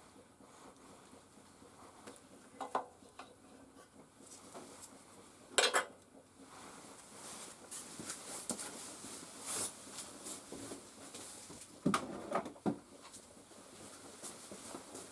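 Small metal and plastic parts and hand tools being handled and set down on a workbench: scattered clinks and knocks. The sharpest comes about five and a half seconds in, with two more close together near twelve seconds and lighter ticks between.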